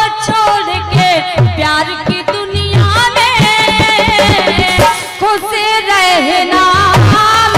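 Live Indian folk music: a woman singing a drawn-out, wavering melodic line through a microphone, over hand-drum strokes.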